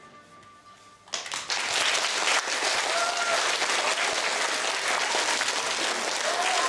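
Audience applause breaking out suddenly about a second in and keeping up steadily, with a few faint voices heard through it.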